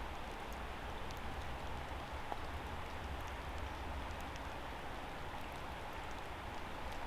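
Steady rain falling, with scattered faint drop ticks over an even hiss and a low rumble underneath.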